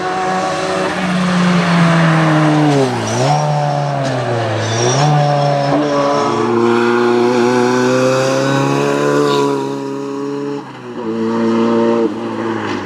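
Ford Sierra RS Cosworth rally car's engine at full throttle on a tight mountain road. Its revs drop sharply and come back up twice, about three and four and a half seconds in, as it slows for a bend, then climb steadily as it accelerates away. The revs fall off again about ten seconds in.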